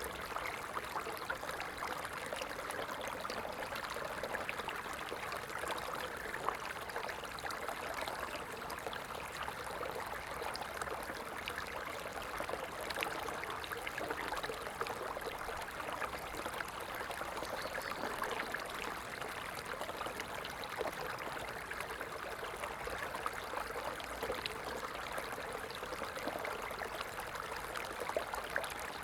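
Stream water running and trickling steadily, a continuous rushing wash with many small splashes and no let-up.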